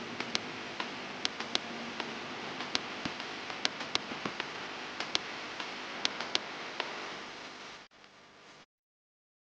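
Irregular sharp metallic clicks and taps, as of tools and parts being handled during a turbocharger overhaul, over a steady machinery noise; the sound drops away near the end and cuts off suddenly.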